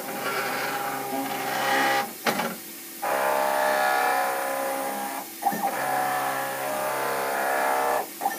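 A CNC-controlled milling machine's axis drive motors whine steadily as the table moves through a touch-probe routine that finds the centre of a bored hole. The whine comes in three runs of about two seconds each, with a short click between runs as one move stops and the next begins.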